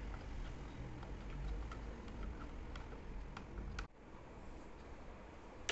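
Light, scattered clicks and ticks as the metal clamp screw of a Chrome No. 9505 table-top pencil sharpener is tightened against the table edge, over a low rumble that drops away abruptly about four seconds in.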